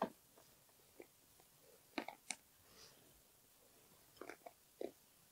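Faint, scattered clicks and rustles of chopped Joghurette chocolate pieces being picked by hand from a bowl and dropped into meringue nests.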